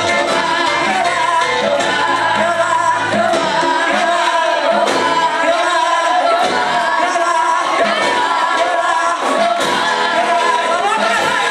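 Loud worship music with singing, filling a large hall.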